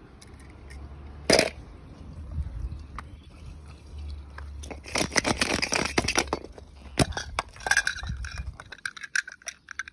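Close handling of plastic toys: a sharp click about a second in, then scraping, crinkling and clicking as plastic balls and plastic capsule eggs are moved about, busiest about five to six seconds in, with scattered clicks near the end. A low steady rumble runs underneath until near the end.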